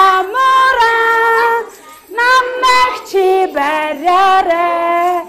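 A woman and young children singing a children's game song together, in short phrases of held notes with a brief break about two seconds in.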